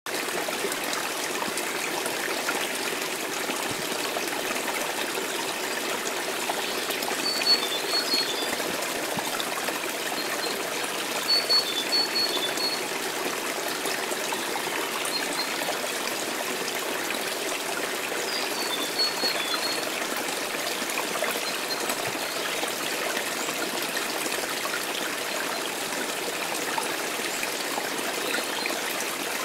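Garden pond fountain splashing steadily into the water, a continuous trickling. Short high chirps come in three brief spells over it.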